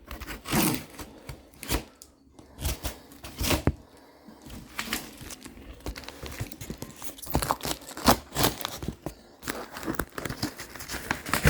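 Box packaging being torn open and handled: irregular rips and crinkling with a few sharp knocks and rustles.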